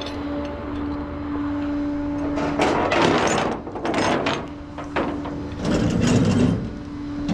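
Tow truck running with a steady hum while the winch cable and hook clatter and rattle in several bursts as they are pulled out.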